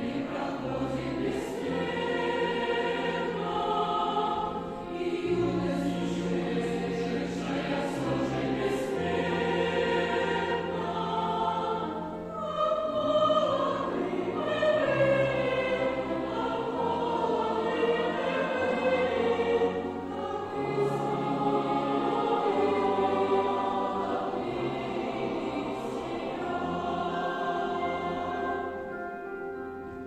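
Large children's choir singing with an orchestra of Russian folk instruments and piano accompanying; near the end the voices stop and the instruments play on.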